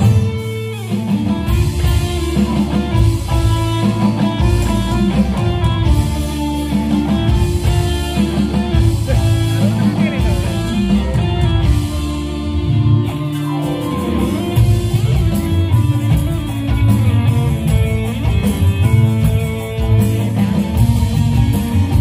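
Live band music played loud through a PA sound system: electric guitars over bass and drums, with a steady beat throughout.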